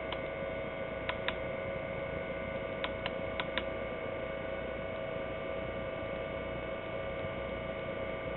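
A flashlight's push-button switch clicked about seven times, mostly in quick pairs, in the first four seconds, cycling the light through its modes. A steady electrical hum runs underneath.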